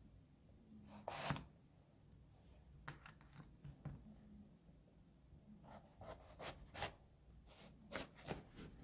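Chef's knife cutting a raw eggplant on a cutting board: quiet, irregular slicing strokes and light knocks of the blade on the board, coming in a few short clusters.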